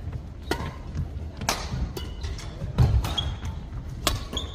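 Badminton rally in a hall: several sharp cracks of rackets striking the shuttlecock, a loud thud of feet landing on the court near the middle, and two brief squeaks of court shoes.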